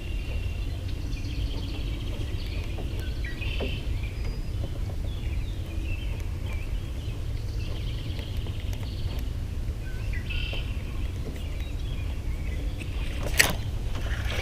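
Small birds chirping on and off over a steady low rumble, with one sharp knock about thirteen seconds in.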